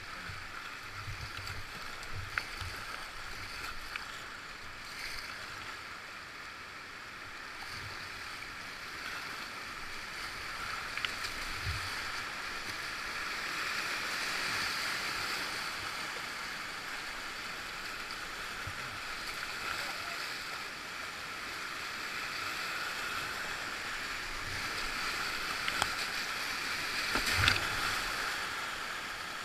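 Whitewater river rushing steadily, swelling a little toward the middle and again near the end, with a few scattered short knocks and splashes; the loudest knock comes near the end.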